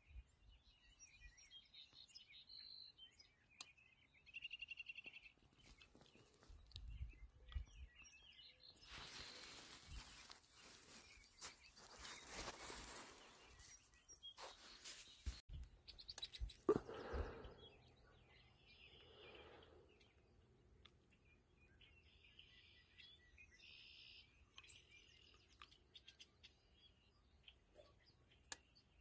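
Near silence with faint songbird chirps on and off, a few seconds of soft rustling hiss about a third of the way in, and a soft bump about halfway through.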